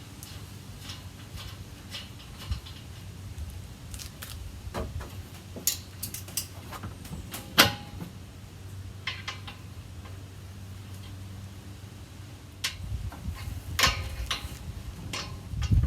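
Irregular metal clicks and clinks of a wrench tightening an acorn nut onto a grill's wheel axle stud, with one sharper click about halfway through.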